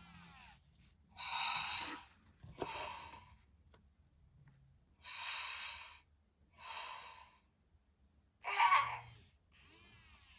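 Cubbles the Bear, a Little Live Pets Cozy Dozys plush toy, snoring through its built-in speaker: three slow breaths in and out, a few seconds apart, with the loudest, most throaty one near the end.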